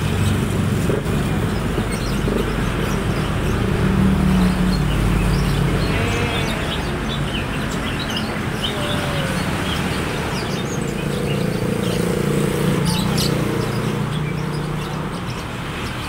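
Steady low rumble of road traffic, with scattered short chirps and tweets of caged birds over it and a couple of brief sliding calls about six and nine seconds in.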